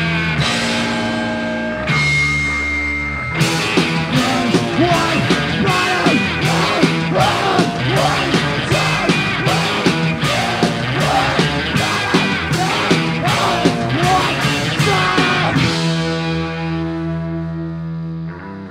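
Garage punk band playing with distorted electric guitar and drums. A held chord opens, a fast steady drum beat runs under the guitar, and the song ends on one held chord that rings out and fades.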